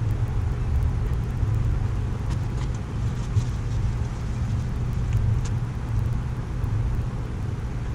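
Propane burner running steadily under a cast iron disco wok, a low roar, with faint scattered ticks from the hot pan now and then.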